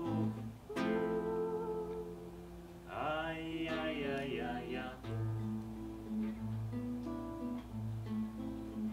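Acoustic guitar accompanying a Norwegian lullaby, with a long held note about a second in and a wavering sung phrase around the middle. After that the guitar plays alone, plucked notes over a repeating bass line.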